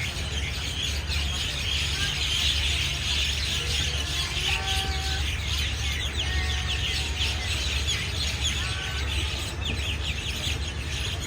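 A large flock of small birds chattering, with many rapid overlapping chirps, over a steady low rumble.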